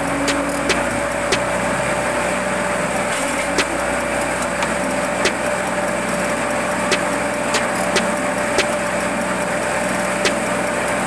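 A forage chopper (chaff cutter) running steadily with a constant hum, while green fodder is fed in and chopped, giving sharp snaps at irregular intervals of about half a second to a second.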